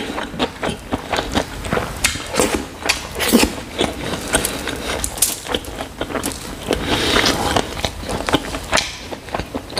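Eating sounds: chewing a mouthful of rice and chicken curry while a hand mixes and scoops rice on a foil-covered tray, giving a string of irregular clicks and smacks.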